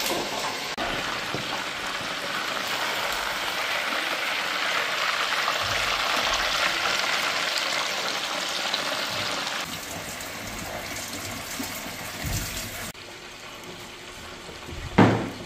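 Electric deep fryer sizzling steadily as pieces of fish fry in hot oil. After about ten seconds the sound drops to a quieter running kitchen tap as eggplants are rinsed under it by hand. There is a single knock near the end.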